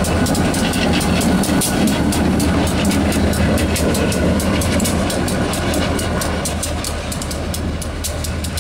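EMD GP40-2 diesel locomotive, its turbocharged 16-cylinder 645 engine running with a steady low drone as it rolls slowly past, with a rapid, even clicking over it. The sound eases slightly near the end.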